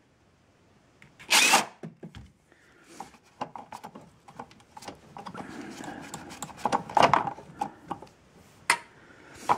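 A short burst from a DeWalt cordless impact driver about a second and a half in, then scattered clicks, knocks and rustling as engine parts are handled by hand, louder for a moment about seven seconds in.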